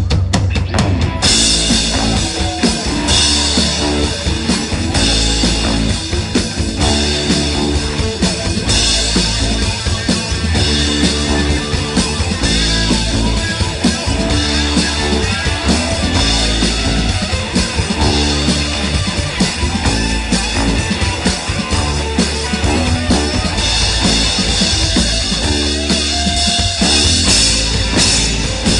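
Live rock band playing an instrumental passage on electric guitars and drum kit. A rapid drum fill runs into the first second, then the full band comes in with cymbals and a steady low end.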